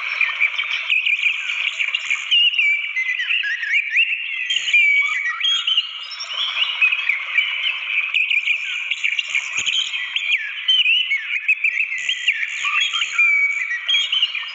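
Orange-headed thrush singing without pause: a fast, varied warbling of short whistled phrases that rise and fall, over a steady hiss of running water from a waterfall.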